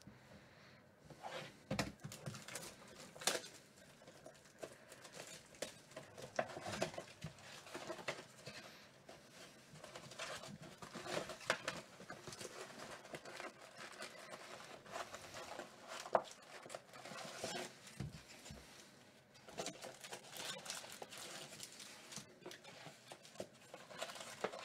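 Hands handling and opening a cardboard trading-card box and its foil-wrapped card packs: fairly quiet, irregular crinkling and rustling with light cardboard taps.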